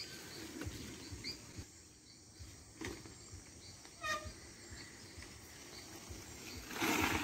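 Faint rural outdoor ambience with a few short, high bird chirps and a call about four seconds in, then a brief rush of noise near the end.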